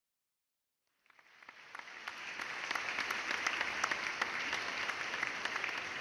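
Audience applauding: silent for about a second, then the clapping swells over the next two seconds and holds steady.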